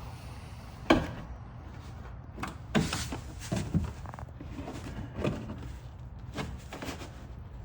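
Scattered knocks and rubbing as a plastic rear wheel well liner is handled against the wheel well while a bolt is lined up with its hole; the loudest knock comes about a second in.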